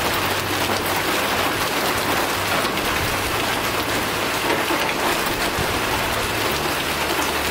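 Heavy rain mixed with hail falling on gravel and wet dirt: a steady, dense hiss made of many small hits.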